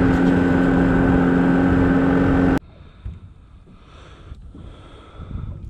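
Small boat's outboard motor running steadily under way, a loud steady hum with rushing wind and water noise. It cuts off abruptly about two and a half seconds in, leaving a much quieter background.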